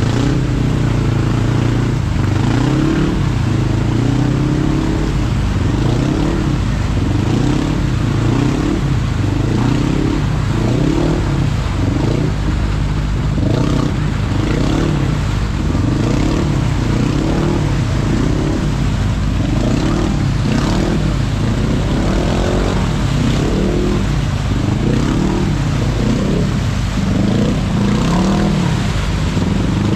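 Side-by-side UTV engine revving up and falling back over and over, about once a second, while the machine is mired in a deep mud hole and trying to claw its way through.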